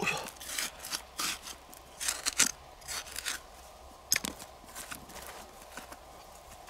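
Small metal hand trowel scraping and digging through loose, clumpy soil, flicking dirt aside in quick, irregular gritty strokes. The strokes thin out after about four seconds.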